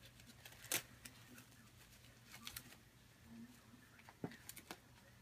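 Faint rustling and scattered soft clicks as a Baby Alive doll and its disposable diaper are handled and the diaper strap is fastened, with one sharper click about three-quarters of a second in.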